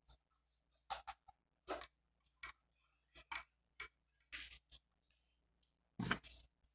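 Old, worn adhesive tape being torn and peeled off a cardboard model elevator cab by hand: a string of short, irregular rustles and crackles about a second apart. A louder knock comes about six seconds in.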